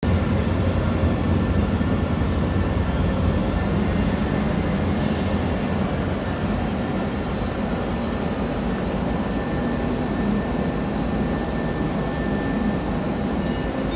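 Railway station platform ambience with the steady low rumble of a train, heavier for the first few seconds and then easing a little.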